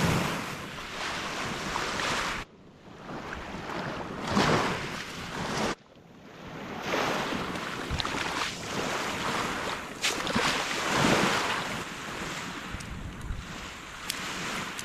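Sea waves washing in, swelling and fading in repeated surges, mixed with wind noise on the microphone. The sound drops out suddenly twice, a few seconds in and again about six seconds in.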